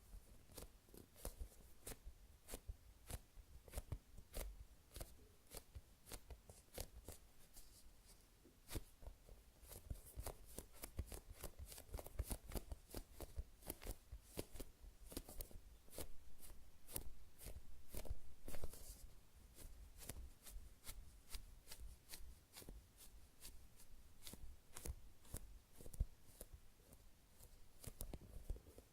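Fingers squeezing and handling a high-rebound foam squishy toy shaped like a baked sweet potato: many small, sharp, irregular clicks and crackles, denser and louder in a longer squeeze a little past the middle.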